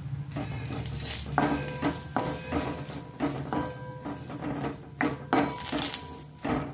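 Crushed makhana (fox nuts) being stirred and sautéed in hot ghee in a kadhai: repeated scraping and knocking of the utensil against the pan, several knocks leaving the metal pan ringing briefly, over a light sizzle.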